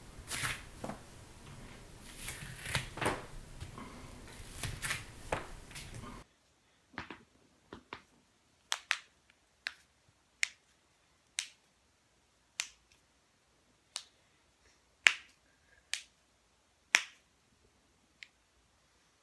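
Joints being cracked: sharp single cracks, about a dozen, roughly one a second, each short and clean against silence. The first six seconds are a noisier stretch of rustling handling with a few cracks in it, which cuts off suddenly.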